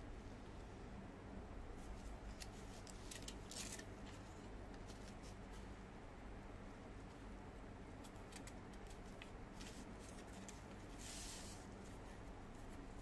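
Origami paper rustling and being creased under fingers: a scatter of short, crisp rustles, with a longer rustle about eleven seconds in.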